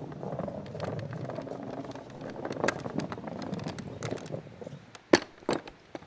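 Wooden barrow rolling over cobbles with a rattling rumble and scattered clicks, ending in two sharp knocks about half a second apart.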